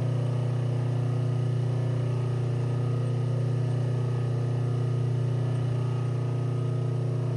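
Electric motor driving a leather stropping wheel, running with a steady, even hum.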